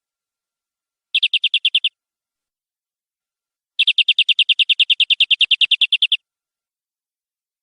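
Domestic canary singing two rapid trills of evenly repeated high notes, about ten a second: a short one about a second in, then a longer one of about two and a half seconds.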